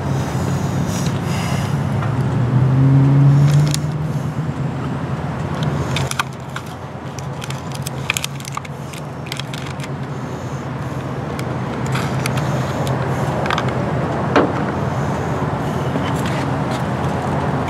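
Steady low vehicle hum, louder for a stretch about two to four seconds in, with scattered short metallic clicks and taps of tire-repair tools.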